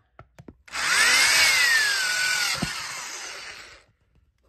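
Black & Decker power drill with a quarter-inch masonry bit boring a drain hole through the bottom of a plastic flower pot. A few short clicks come first, then the drill runs for about three seconds, its whine rising quickly and then falling slowly before it stops near the end.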